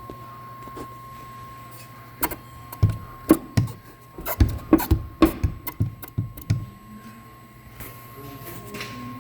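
A Chrysler 300 making a loud thumping noise: about a dozen sharp, irregular thumps starting about two seconds in and stopping after about four seconds, over a steady low hum.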